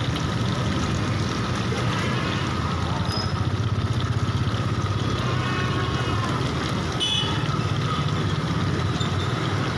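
Steady low rumble of a street-stall gas burner, with hot oil sizzling and bubbling as chicken deep-fries in a wok.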